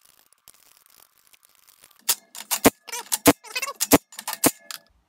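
Cordless impact driver run in a quick series of short, sharp bursts, running lug nuts onto wheel-spacer studs. It is preceded by a couple of seconds of faint ticking as the nuts are handled and threaded by hand.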